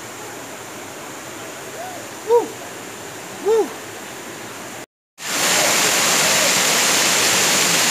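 Rushing water of a rocky stream, with three short rising-and-falling calls. About five seconds in, the sound cuts briefly and switches to the louder, steady rush of a waterfall pouring into its pool.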